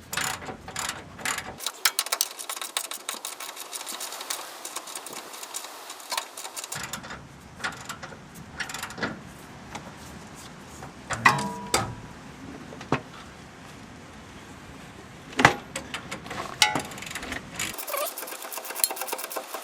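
Hand ratchet clicking in quick runs as the shock absorber's mounting bolts are tightened, followed by a few scattered metallic clicks and knocks.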